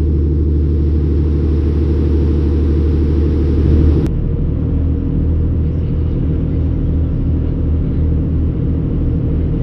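Riverboat engine running with a steady low hum; the sound shifts abruptly about four seconds in.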